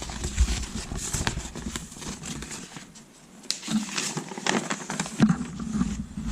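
Paper rustling and crackling in irregular bursts as a large folded instruction sheet is handled and unfolded.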